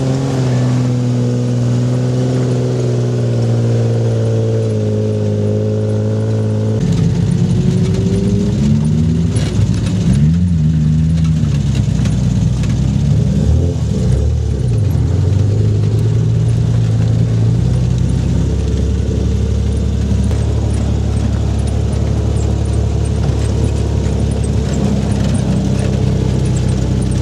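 Off-road 4x4 vehicle's engine running steadily, then revving up and down from about seven seconds in before settling into a steady, heavier drone.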